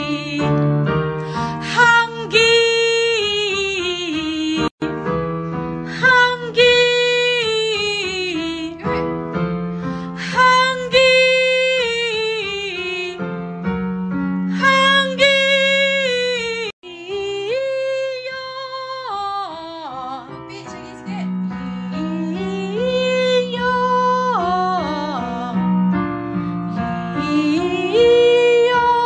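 A woman singing a slow song with long held notes over a keyboard accompaniment of sustained chords. The sound cuts out for an instant twice.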